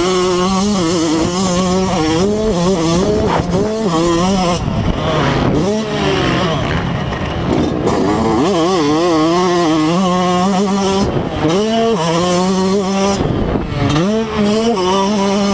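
Yamaha YZ125's two-stroke single-cylinder engine under hard riding, the revs holding high, then falling away and climbing again many times as the throttle is chopped and reopened and the gears are shifted. Heard up close from a camera mounted on the bike.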